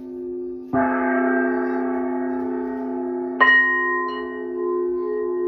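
Singing bowls struck twice, about a second in and again past the middle, each strike ringing on in long, steady, overlapping tones. The second strike adds higher ringing tones over the first.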